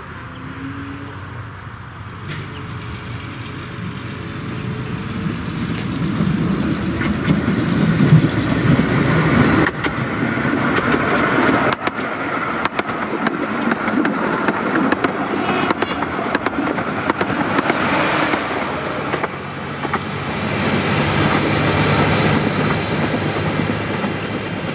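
Small narrow-gauge diesel locomotive approaching and passing with its train. The engine grows steadily louder as it nears, then wheels click over the rail joints as the coaches go by.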